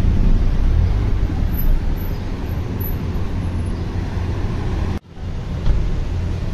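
Street traffic noise: a steady low rumble of cars, which breaks off for an instant about five seconds in.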